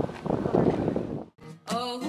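Wind gusting on the microphone for about the first second, then a short drop to silence, and near the end a song with a singing voice begins.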